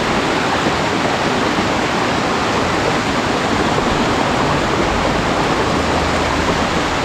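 Small mountain waterfall splashing down over rocks close by: a steady, loud rush of water.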